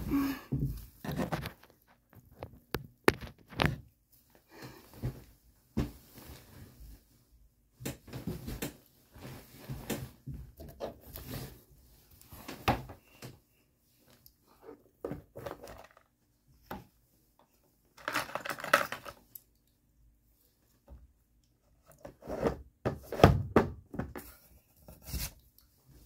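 Irregular knocks, thumps and rustling from bedding and objects being handled close to the microphone, with a longer rustle about two thirds of the way in.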